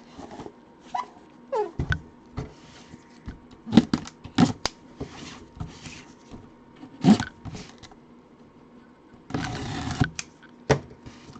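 Hands opening a cardboard box and handling the packaging around a mini football helmet: scattered knocks, clicks and scrapes, a short squeak about a second and a half in, and a burst of rustling near the end.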